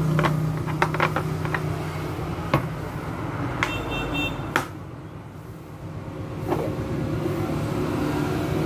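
Light clicks and taps of small tool-kit parts being handled in a hard plastic tool case, over a steady low motor hum that drops away for about a second and a half past the middle and then returns. A brief high squeak near the middle.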